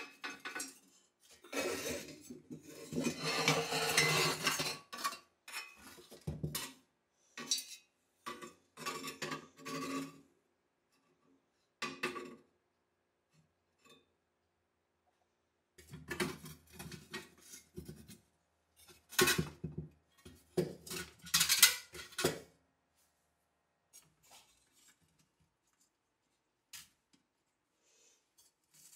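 Metal parts and hand tools clinking and clattering in irregular bursts separated by silent gaps, busiest in a longer rattle near the start and again about two-thirds through, then only a few faint ticks.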